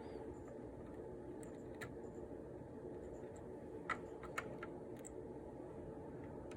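A handful of light, sharp clicks, spaced irregularly, over a steady low hum.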